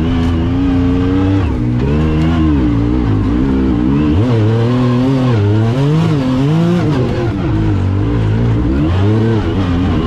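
Yamaha YXZ1000R's three-cylinder engine heard from inside the cab, revving up and dropping back again and again as the throttle is worked on and off.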